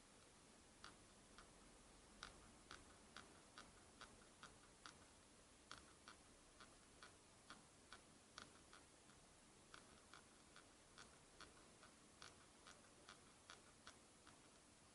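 Nokia N9's polycarbonate body creaking as it is pressed and flexed: a run of faint, sharp clicks, about two a second at an uneven pace.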